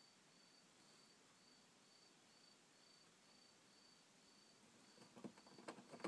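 Near silence, with a faint high chirp repeating evenly about twice a second. About five seconds in, a run of small clicks and scratches begins.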